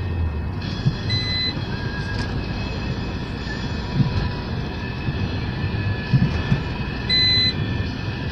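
Road noise and engine rumble inside a moving taxi's cabin, with a few low thumps from the road. Two short high electronic beeps sound, about a second in and again near the end.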